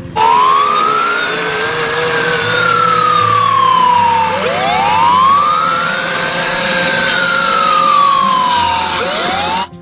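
Fire engine siren wailing in slow cycles, each tone rising for about two seconds and falling for about two more, two full cycles with a third starting, over a steady lower tone. It cuts off abruptly near the end.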